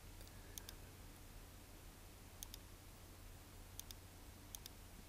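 Faint computer mouse button clicks, about five spread across a few seconds, most heard as a quick pair of ticks, over a low steady hum.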